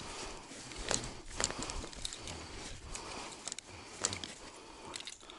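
Rustling and handling noises from gear in a straw-floored hunting blind, with a few sharp clicks about one, one and a half and four seconds in.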